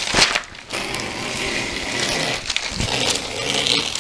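Scissors cutting through the overhanging edge of a diamond-painting canvas: a sharp snip at the start, then about three seconds of steady crisp rasping as the blades run along the side.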